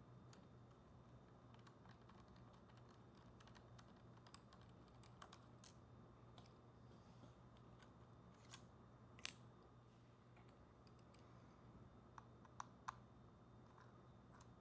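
Faint, scattered small clicks and taps of hands handling a small plastic DJI Mini 4 Pro drone and a micro Phillips screwdriver at its propellers, with a few sharper clicks after the middle, over near silence.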